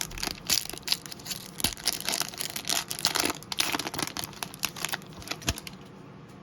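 A trading-card pack wrapper being torn open and crinkled in quick, irregular bursts as the cards are pulled out, dying down after about five seconds.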